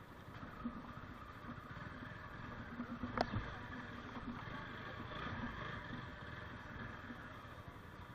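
Motorcycle engine running steadily while the bike crawls over a rough, rutted dirt track, with a single sharp knock about three seconds in.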